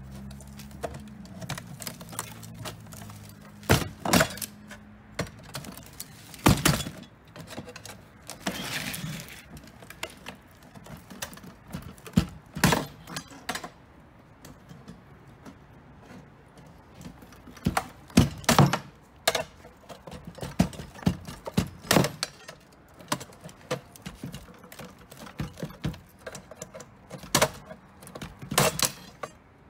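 Irregular metal clanks and knocks, a crowbar prying and striking at a payphone's steel housing, with a handful of much louder hits among the lighter scraping and rattling.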